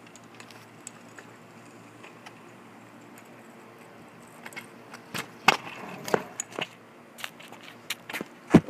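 Low, steady background for the first few seconds. Then, from about halfway, scattered sharp clicks and knocks, the loudest near the end.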